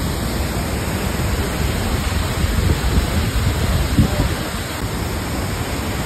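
Waterfall rushing steadily, heard close, with a deep rumble underneath.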